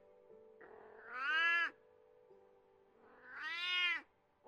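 Domestic cat meowing twice, each meow about a second long, rising and then falling in pitch.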